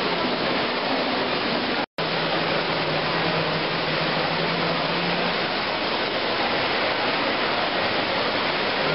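Steady rushing hiss of a shopping-centre fountain's water jets. The sound cuts out for an instant just under two seconds in.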